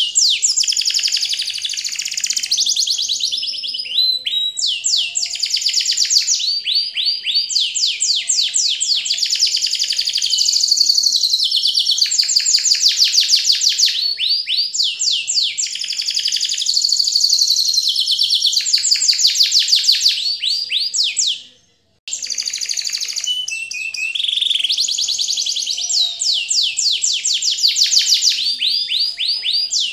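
Birds chirping and trilling continuously in rapid, dense runs of high chirps. The sound cuts out completely for about half a second some 21 seconds in, then resumes.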